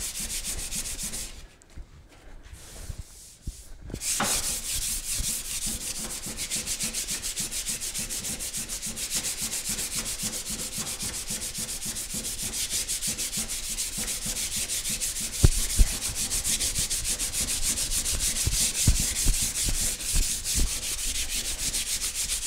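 Folded sandpaper rubbed back and forth by hand over a car body panel coated in Evercoat Feather Fill primer, in quick, even strokes, sanding off the guide coat to show remaining scratches. The sanding breaks off briefly after about a second and a half and resumes about four seconds in, with a few low thumps in the second half.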